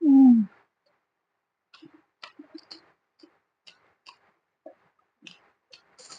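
A short, loud hummed "mm" that falls in pitch, then irregular soft clicks and smacks of close-miked chewing and mouth sounds while eating.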